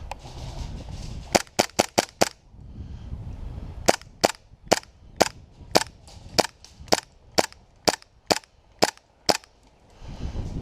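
Airsoft guns firing single shots, each a sharp crack: a quick string of five in about a second, then about a dozen shots at a steady pace of roughly two a second.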